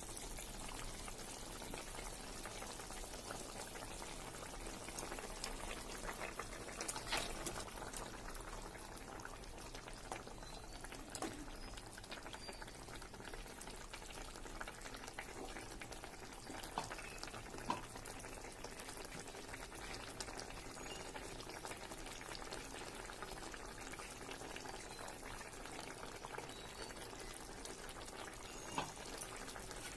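Masala fish curry simmering in a pan, a steady low bubbling and sizzling hiss, with a few light clicks now and then.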